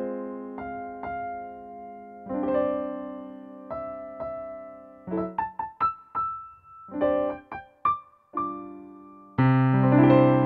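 Background music: a gentle piano tune of held chords, with a run of short, quick notes in the middle and a deeper chord coming in near the end.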